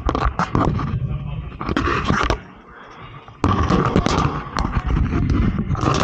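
Dense crackling, scraping and knocking handling noise as a camera on a flexible gooseneck is worked around inside a furnace's sheet-metal cabinet. It drops away for about a second midway, then resumes.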